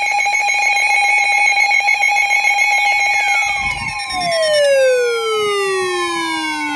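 Electronic emergency alert tones: a loud, steady, buzzy multi-tone alarm, joined about three seconds in by a tone that glides steadily down in pitch.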